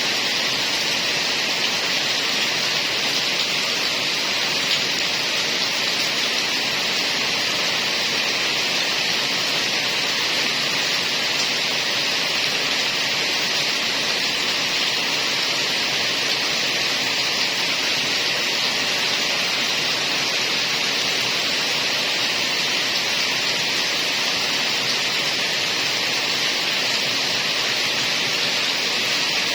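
Heavy rain falling steadily, an even hiss with no separate drops, thunder or changes.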